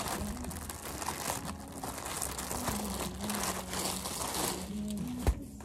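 Clear plastic poly bags crinkling and rustling continuously as a clothing top is handled and pulled out of its bag. A single sharp tap near the end.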